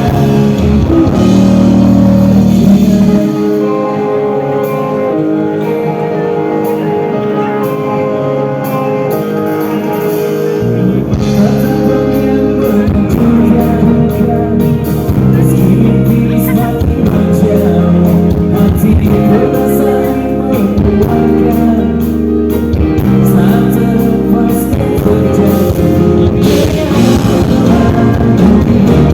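A live rock band playing, with singing, electric guitar and drum kit; the bass and drums drop out for a quieter passage of several seconds before the full band comes back in.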